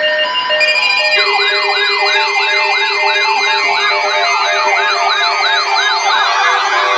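Electronic alert siren: held tones at first, then from about a second in a fast wail sweeping up and down about three times a second, layered over steady tones.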